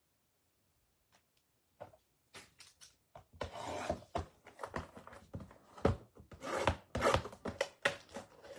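Plastic shrink-wrap being slit and torn off a cardboard blaster box of trading cards: crinkling and scraping with sharp knocks of the box being handled. A few clicks start about two seconds in, and it becomes a busy, steady crackle after about three seconds.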